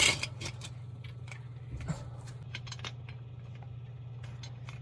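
Screw jack being cranked by hand: scattered light metal clicks and rattles from the crank and screw, with a sharper knock right at the start, over a steady low hum.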